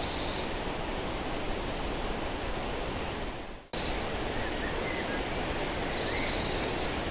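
Steady wind noise rushing on the microphone outdoors, with a few faint bird chirps. It fades away and cuts back in abruptly about three and a half seconds in.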